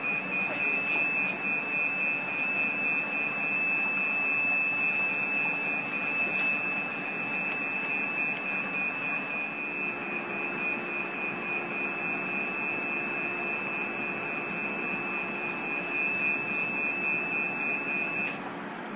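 The BM18-2S diode laser machine's low-water alarm sounds as one unbroken high-pitched tone while its water tank is being filled, and cuts off suddenly shortly before the end. Under it runs a steady rushing noise from the machine's cooling fan.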